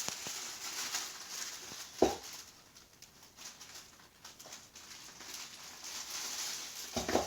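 Handling noise: rustling and light clicking, with a sharp knock about two seconds in and another pair of knocks near the end.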